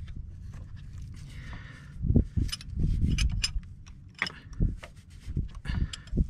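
Metal clicks and clinks of a combination wrench being fitted onto and worked on a truck starter's mounting bolt, irregular and scattered, with a few dull knocks about two to three and a half seconds in.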